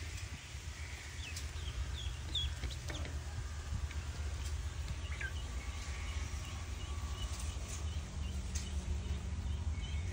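Young poultry peeping around a food dish: many short, high chirps scattered through, over a steady low rumble.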